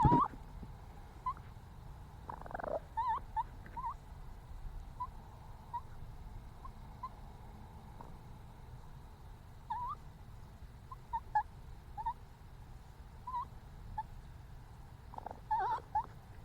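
A sharp knock, then a run of short chirping animal calls at about one pitch, spaced irregularly every half second to a second, with a quicker cluster near the end, over a steady low rumble.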